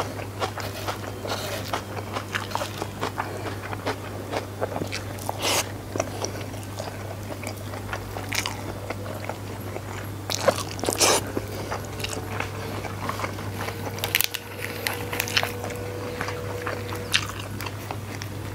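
Close-up mouth sounds of someone eating by hand: chewing and biting with crunches and wet clicks as rice, fried egg, petai-bean sambal and raw lettuce are eaten, with a steady low hum underneath.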